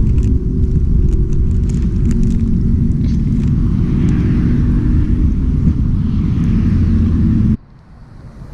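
Wind buffeting the microphone outdoors, making a loud, steady low rumble with a few faint ticks above it. It cuts off suddenly near the end.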